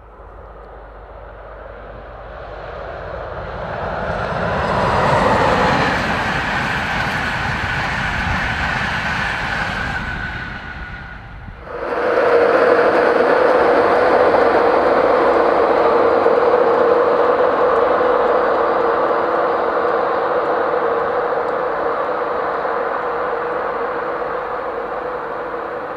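InterCity 225 train, a Class 91 electric locomotive with Mk4 coaches, passing at speed. The noise builds to a peak about five seconds in. About twelve seconds in it cuts abruptly to a second loud passage with a steady hum, which eases off slowly toward the end.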